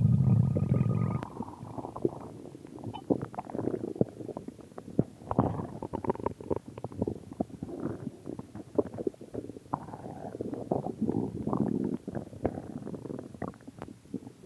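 A person's stomach growling: a loud low rumble that stops about a second in, then a long, irregular run of gurgles and small clicks.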